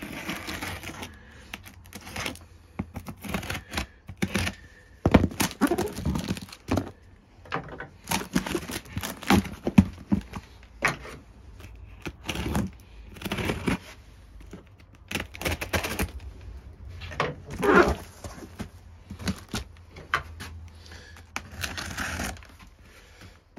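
Scissors cutting through packing tape on a cardboard box: irregular snips, scrapes and knocks against the cardboard.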